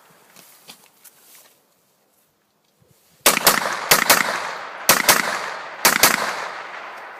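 Rifle fired in quick pairs: about eight shots in four double taps roughly a second apart, starting about three seconds in, each followed by a rolling echo. Before them a few faint clicks and a brief near silence.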